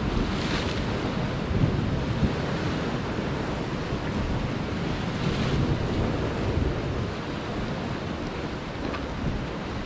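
Sea waves washing and breaking against rocks below, a steady rushing that swells twice, with wind buffeting the microphone.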